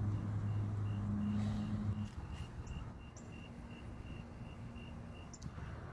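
Cricket chirping steadily, a short high chirp about four times a second, over a low hum that stops about two seconds in.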